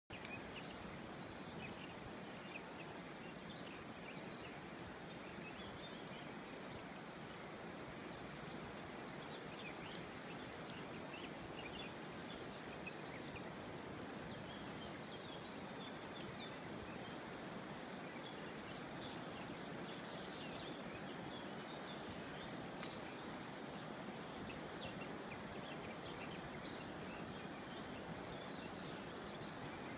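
Steady rush of a swollen river in flood, its fast water running through submerged bushes, with small birds chirping briefly now and then over it.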